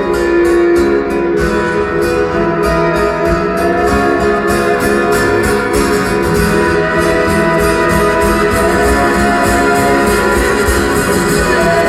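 Live band music, guitar-led, with sustained organ-like tones under a fast, even rhythmic pulse.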